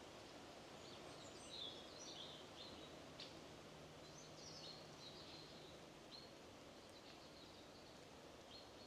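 Near silence: faint outdoor ambience with a steady low hiss and a few quiet, high bird chirps in the first half and again near the end.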